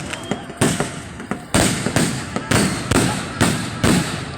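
Fireworks going off: a rapid series of about seven loud bangs, roughly two a second, each fading out in a rumble, with a few smaller cracks before the first big one.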